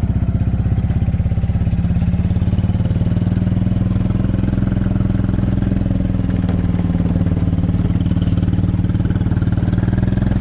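A vehicle engine running steadily at a constant speed, with an even, rapid firing pulse.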